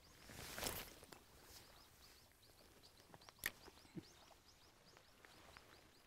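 Near silence: faint high bird chirps repeating about three times a second. A brief soft rustle comes about half a second in, and a light click about three and a half seconds in.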